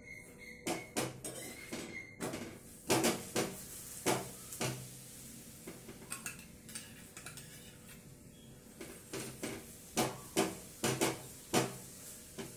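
Irregular clinks and scrapes of a metal spatula against a hot iron tawa as an oiled stuffed paratha is pressed down while it fries, in two bursts, near the start and in the last few seconds. In between there is a faint steady sizzle of oil on the pan.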